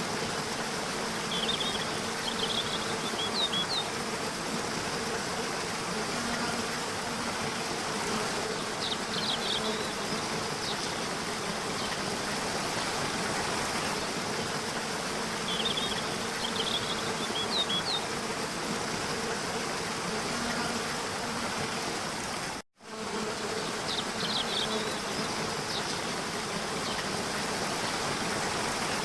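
Steady rushing waterfall water with a low steady hum under it and brief clusters of high chirps every several seconds. The sound cuts out for a moment about three-quarters of the way in.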